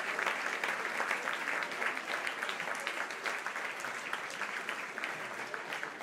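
Stadium crowd applauding, the clapping slowly fading.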